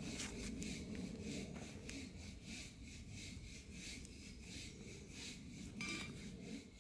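Rhythmic scraping, several strokes a second, held steady throughout.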